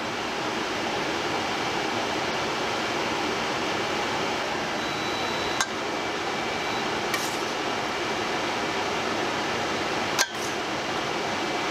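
A spoon clinking a few times against a stainless steel pot as sauce is stirred, over a steady fan-like rushing noise.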